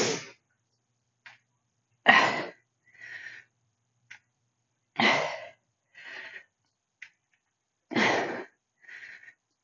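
A woman's forceful breathing during heavy kettlebell farmer squats, in time with the reps: a sharp exhale about every three seconds, three times, each followed by a softer breath.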